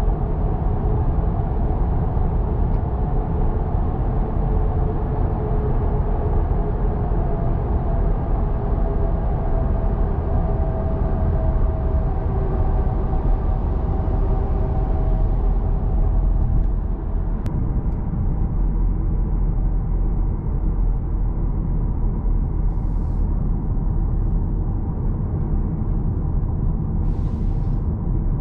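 Steady in-cabin drone of an Audi A6 cruising, mostly low road and tyre rumble with engine hum. A faint pitched hum fades out about halfway through.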